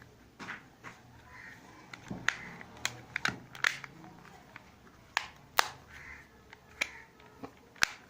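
About ten sharp plastic clicks and snaps, irregularly spaced, as a TV remote's two casing halves are pressed and snapped back together.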